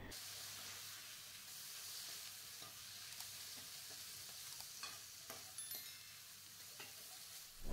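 Quiet, steady sizzle of curry paste and ingredients frying in a wok, with a few light clicks of a metal ladle stirring against the pan.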